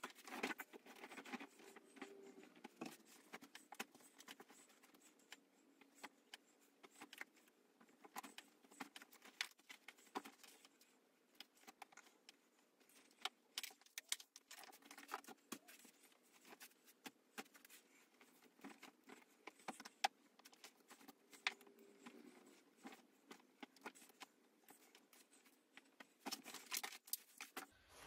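Faint packing noises: irregular small clicks, taps and rustles of clothes and small items being handled and put into a suitcase, with a few sharper knocks near the end.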